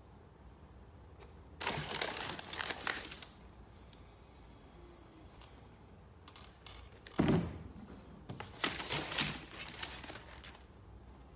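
Handling of a sneaker in its shoebox: two spells of rustling and crinkling of the tissue paper and the shoe against the cardboard, with one dull thunk a little after the halfway point.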